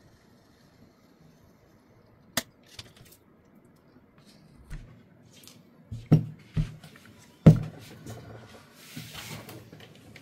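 Plastic speaker mounting ring being handled and set down: a sharp click about two seconds in, then several dull knocks between about six and eight seconds, and a short soft rustle near the end.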